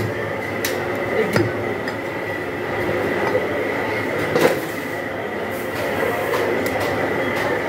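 Heavy meat cleaver chopping goat meat on a wooden log block: a few sharp chops in the first second and a half, then one louder knock about four and a half seconds in. Under it runs a steady background din with a faint high tone.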